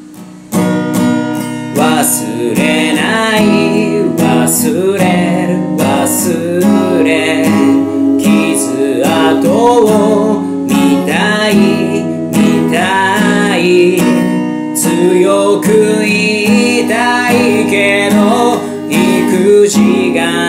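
A man singing a Japanese-language ballad to his own strummed acoustic guitar. The strumming pauses briefly at the very start, then resumes, and the voice comes in about two seconds in.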